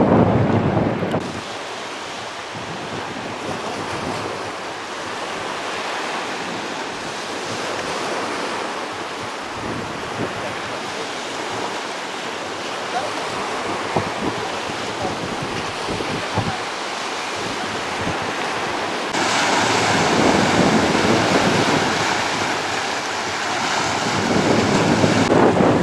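Sea surf washing onto a beach, a steady rushing noise, with wind buffeting the microphone. The sound shifts abruptly about a second in and again about two-thirds of the way through, where it grows louder and fuller.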